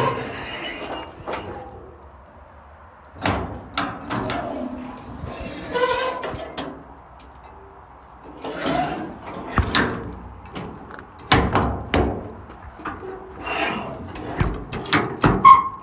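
Service-body compartment doors on a work truck being opened and shut, with a series of knocks, latch clicks and door slams. The doors close and latch properly.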